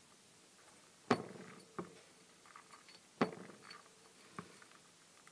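Two sharp clinks about two seconds apart, with a few fainter taps between and after: a hamster moving about its plastic cage and knocking against its fittings.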